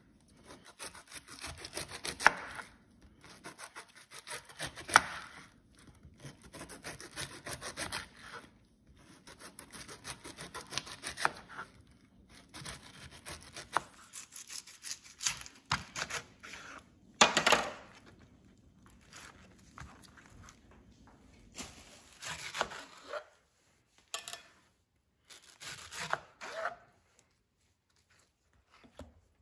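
Kitchen knife sawing through pineapple skin and flesh against a plastic cutting board, in bursts of scraping strokes with short pauses between them.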